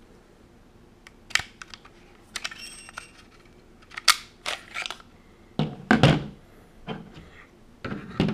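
Real-steel FN FNX-45 Tactical pistol being field-stripped by hand, with sharp metal clicks as the slide is drawn back and the takedown lever is switched down. Heavier clacks and knocks follow as the slide comes off the frame and is handled, the loudest about six seconds in and again near the end.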